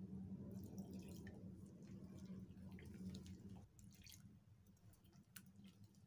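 Faint sound of water poured from a mug into a glass bowl of flour and gram-flour batter, with a silicone spatula stirring the wet batter, making small scattered ticks and drips.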